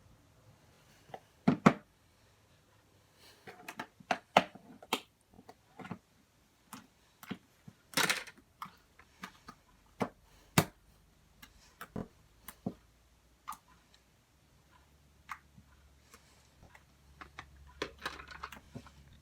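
Slime being handled, giving scattered sharp clicks and pops at irregular intervals, with a longer squishy burst about eight seconds in.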